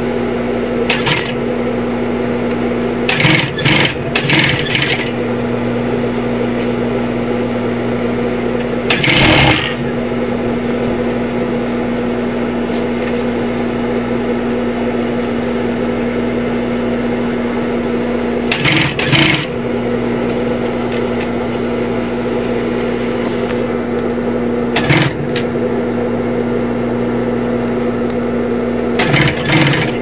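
Sewing machine running: its motor hums steadily, and several short bursts of rattling stitching come through it as the backpack's zipper is sewn, the longest near the start and again near the end.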